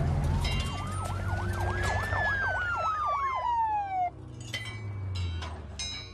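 Police car siren sounding a rising then falling wail with a fast yelp over it. It cuts off about four seconds in, over a low engine rumble.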